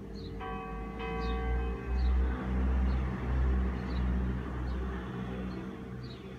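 A swinging church bell, one of a five-bell ring in G cast in 1947 by Ottolina, is struck twice, about half a second and a second in, and its ring fades away. A low rumble swells and is loudest through the middle, and small birds chirp throughout.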